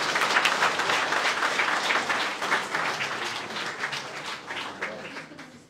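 Audience applauding, dense clapping from a seated crowd that thins out and fades near the end.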